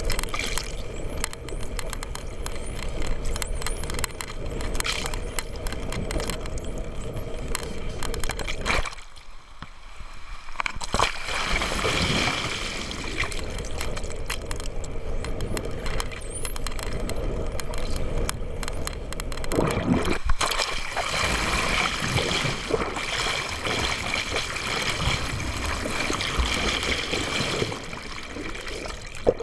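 Water rushing and bubbling over an underwater camera as a swimmer is towed through the sea behind a boat. The sound is a steady muffled wash that drops away briefly about nine seconds in.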